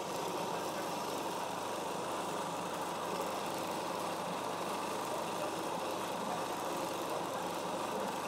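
Magimix blender motor running steadily under load, blending a thick garlic and ginger paste.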